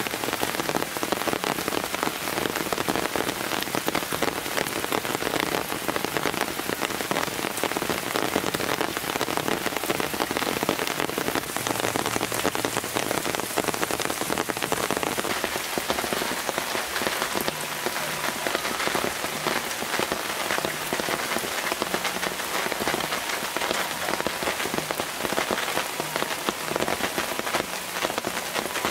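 Steady rain falling on palm fronds and foliage: an even, dense patter of drops.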